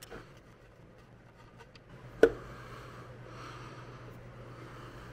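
Old engine oil draining from the oil pan of a Kubota DF752 engine. A single sharp knock comes about two seconds in, then a faint steady pouring of oil into a drain bucket.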